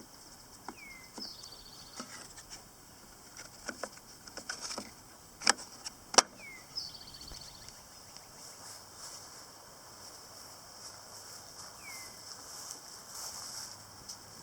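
A few sharp clicks and knocks from lawn mower engine parts being handled, the loudest two about five and a half and six seconds in. A bird gives a short falling chirp with a brief trill three times over faint outdoor background.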